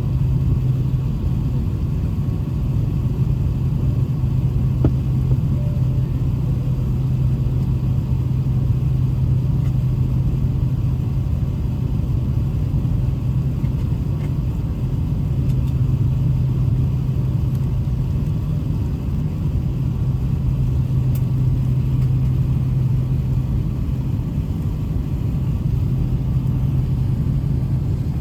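Steady low rumble inside an Airbus A380-800 cabin on the ground before takeoff, with a low drone that swells and fades a little.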